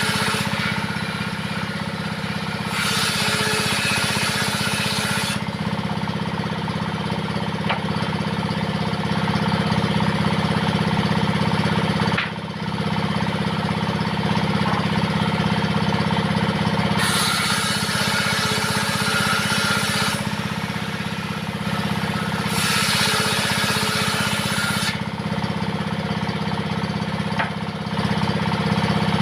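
Diesel engine running steadily, driving a homemade table saw. Three times the saw blade cuts into wood, each cut a louder, hissing, higher-pitched spell of a few seconds over the engine's steady note.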